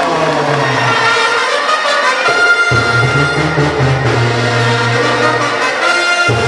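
Mexican banda brass music: trumpets and trombones playing held notes over a low brass bass line.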